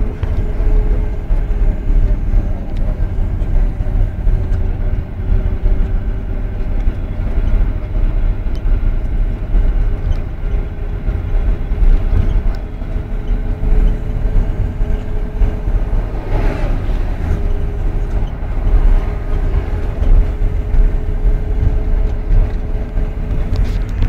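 Steady low rumble of engine and tyre noise, heard from inside a moving road vehicle, with a faint steady hum throughout. A brief louder rush comes about two-thirds of the way through.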